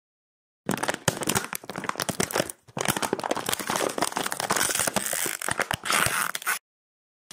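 Dense crumpling and crinkling full of small cracks, in two stretches with a brief break about two and a half seconds in, stopping abruptly near the end.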